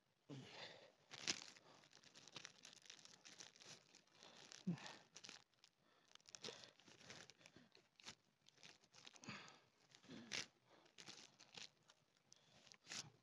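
Faint crinkling and crackling of clear plastic grafting film as it is handled and stretched to wrap a fresh graft, with a few sharper crackles about a second in, near five seconds and near ten seconds.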